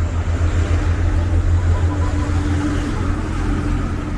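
City street traffic: a steady low rumble of car and truck engines on the road alongside, with a faint engine hum that comes and goes.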